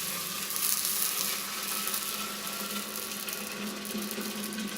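Boiling water being poured into the 5-liter pot of an essential-oil still, a steady splashing hiss.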